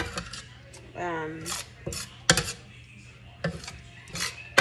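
Metal spoon scraping and clinking against a stainless steel skillet as browned ground sausage and diced tomatoes are stirred, several separate strokes, with the food sizzling faintly.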